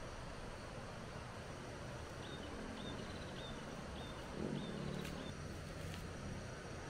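A bird calling a run of about six short high notes, roughly two a second, over steady outdoor background noise. A brief low muffled sound comes near the end of the calls, followed by two faint clicks.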